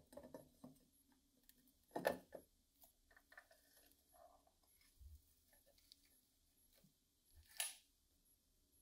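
Light metallic clicks and taps of the enamelled sheet-metal hood and hinge of an old train lantern being fitted together, a wire hinge pin sliding into place, with a sharper clink about two seconds in and another late on.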